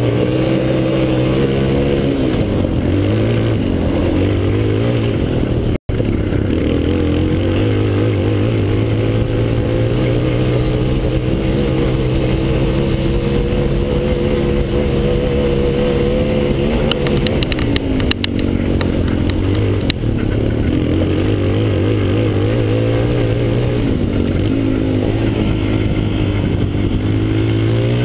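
Yamaha Raptor 250 quad's single-cylinder four-stroke engine running under way, its pitch rising and falling as the rider speeds up and eases off. The sound cuts out for an instant about six seconds in, and a cluster of sharp rattling clicks comes about two-thirds through.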